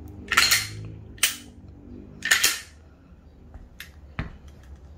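Sharp metallic clacks and clicks of a Glock 19 Gen 5 pistol's slide and trigger mechanism being worked by hand, about five strokes spread a second or so apart, two of them longer.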